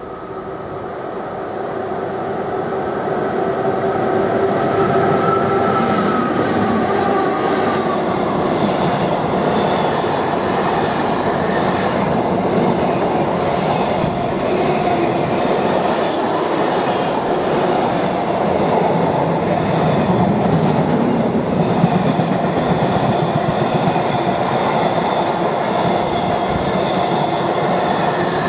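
A pair of Class 90 electric locomotives hauling a container freight train approach and pass. Their whine drops in pitch as they go by, then comes the steady rumble and clatter of the loaded container wagons rolling over the rail joints.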